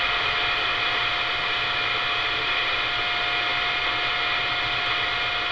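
Radio receiver static between transmissions: a steady hiss with a steady whistling tone over it, the kind a carrier on the channel makes in a single-sideband receiver.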